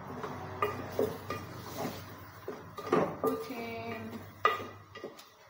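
A wooden spoon stirring pork pieces in a metal cooking pot. It knocks and scrapes against the pot in an irregular string of knocks, each followed by a short metallic ring. The loudest knocks come about three seconds in and about four and a half seconds in.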